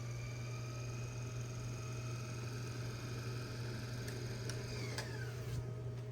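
Steady electrical hum with faint high-pitched whining tones that slide downward and die away about five seconds in, with a few sharp clicks around then.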